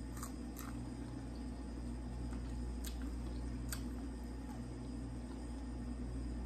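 A person chewing breaded fried food, with a few short, sharp crunches scattered through, over a steady low hum.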